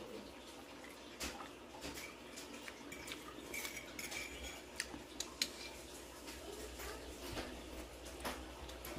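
Cutlery clicking and scraping against a plate while someone eats, as scattered light clinks spread over several seconds.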